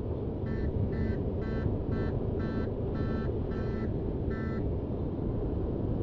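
Wind and engine noise from a Honda VFR800 motorcycle riding at highway speed. Over it, eight short electronic beeps come about two a second and stop after about four and a half seconds.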